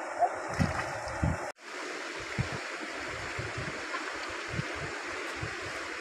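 Shallow river flowing over a stony bed: a steady rush of water, with a few soft low thumps. The sound breaks off for an instant about a second and a half in, then the flow resumes.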